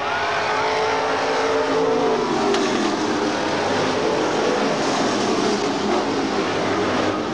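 IMCA stock car V8 engines racing around a dirt oval. One engine's pitch falls over the first two or three seconds as cars go by, then the pack's engines run on steadily.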